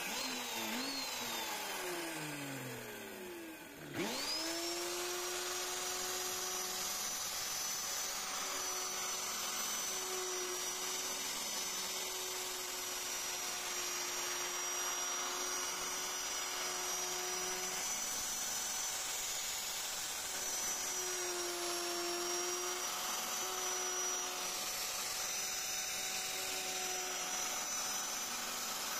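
Electric plunge router winding down, its whine falling for about four seconds. It is then switched on again, spins up quickly to full speed and runs at a steady high whine as the bit cuts the wood, the pitch dipping slightly under load now and then.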